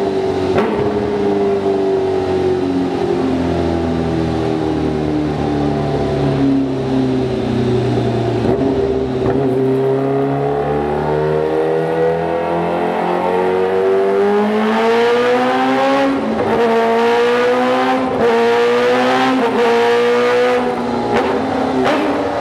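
Kawasaki Ninja H2R's supercharged inline-four engine running hard while the bike stands still. The pitch sags slowly over about ten seconds, then climbs and rises and falls several times in the last few seconds.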